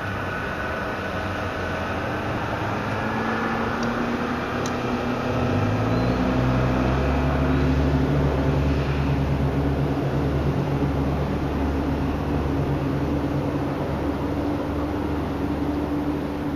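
Motorboat engine running steadily, its pitch rising about five seconds in as it speeds up, then holding; it is loudest a few seconds later.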